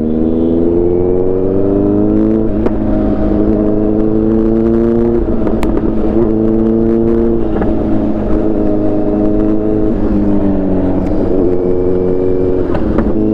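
Kawasaki Z900's inline-four engine with an Arrow aftermarket exhaust, heard from the rider's seat while the bike is underway. The engine note climbs as it accelerates, dips briefly at each gear change, and falls away as the rider eases off near the end.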